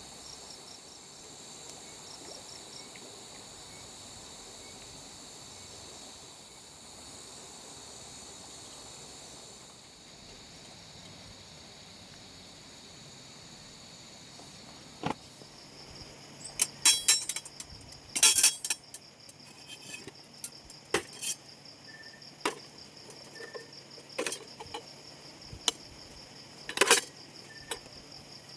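Crickets and other insects chirring steadily at a high pitch. In the second half there are scattered sharp clicks and knocks, with a few louder clattering knocks.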